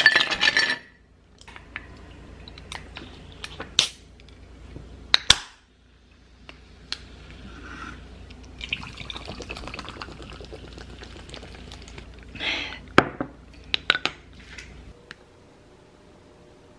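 Ice cubes clattering into a glass mug, followed by scattered sharp clinks of ice against glass. Juice is then poured over the ice, with a splashing, pouring sound and more clinks.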